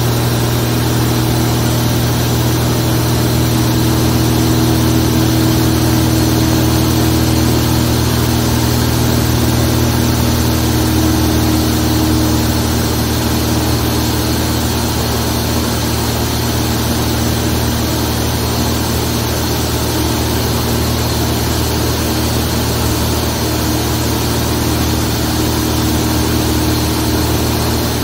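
Zlín Z-42 light aircraft's inverted six-cylinder piston engine and propeller running steadily in flight, at an even pitch with no change in power.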